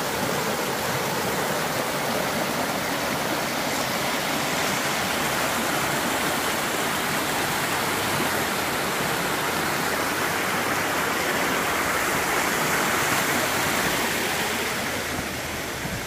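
Mountain stream rushing and splashing over rocks in a small, shallow cascade: a steady, full rush of running water, growing a little quieter near the end.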